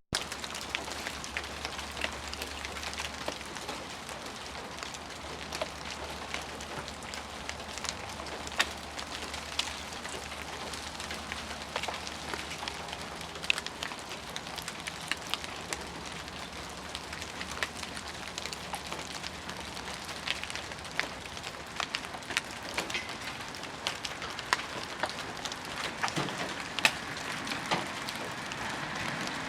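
Pieces of melting ice dropping from ice-coated trees and pattering on the ground like hail: a steady hiss of many small impacts with frequent sharper ticks scattered throughout.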